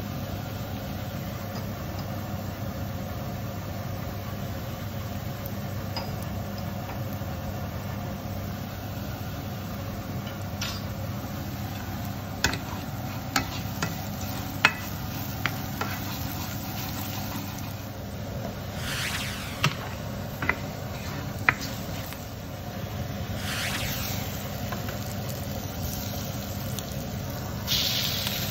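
Diced onions and ground spices sizzling in a hot nonstick frying pan over a steady low hum. A spatula knocks and scrapes against the pan in a run of sharp taps through the middle. Near the end the sizzle grows louder as raw chicken wings go into the hot oil.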